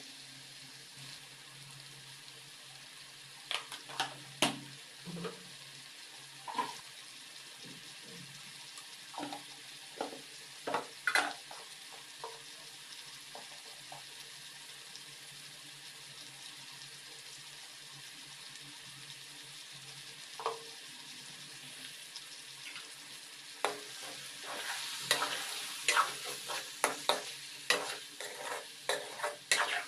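Chopped tomatoes and boiled eggs frying in a metal kadai with a steady low sizzle. Scattered clicks of a spatula on the pan come in the first half, and from about two-thirds of the way in there is busy stirring and scraping against the pan.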